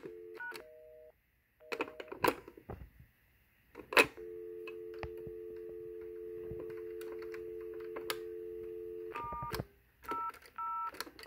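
Telephone line dial tone, a steady two-note hum lasting about five seconds, followed by several short touch-tone (DTMF) key beeps as keys are pressed on a push-button phone. Near the start there are brief key tones and a short change of tone, then a few sharp clicks.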